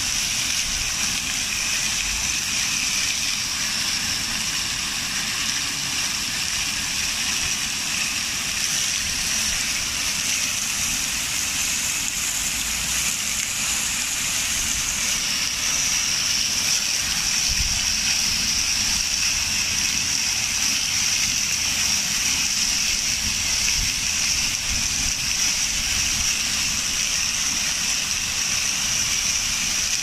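Many vertical jets of an outdoor fountain splashing down into stone basins: a steady hiss of falling water, a little louder from about halfway on.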